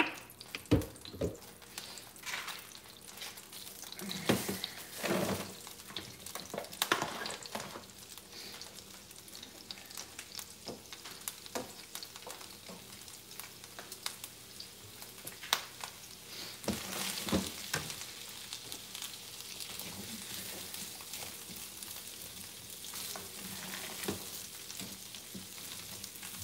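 Diced onions sizzling in olive oil in a frying pan on the stove, a steady hiss. Sharp clicks and knocks of utensils and dishes come mostly in the first several seconds and again around the middle, and near the end a spatula stirs the onions.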